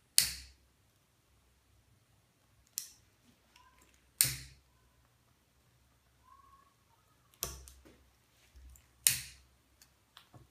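A hand lighter struck again and again to light quick-light hookah charcoal discs: five short, sharp rasping bursts, each fading within half a second.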